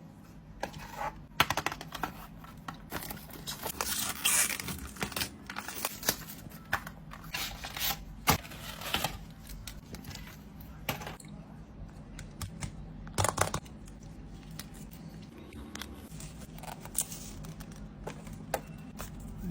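Screen protector and its plastic backing films being peeled off and handled: irregular tearing, crinkling and scraping noises with small clicks and taps as the protector is fitted to the phone.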